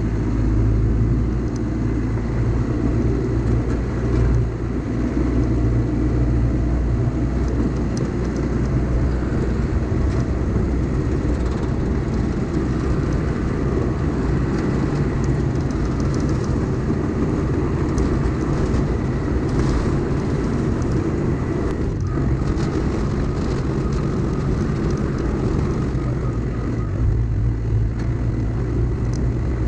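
Diesel engine of a Caterpillar earthmoving machine running steadily at work, a loud, even low drone with no pauses.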